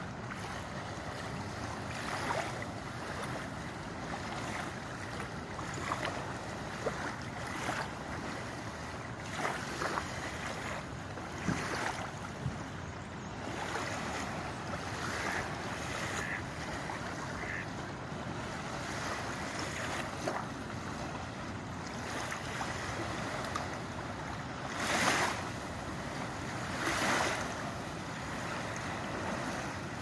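Small waves lapping and washing up on a gravel shore, with wind on the microphone; a few louder surges stand out, the two biggest near the end.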